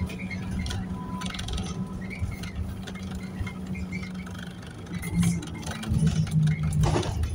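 Interior of a New Routemaster hybrid bus on the move: a steady low drone from the drivetrain that drops slightly in pitch about five seconds in, with light rattles from the fittings and a sharp clunk near the end.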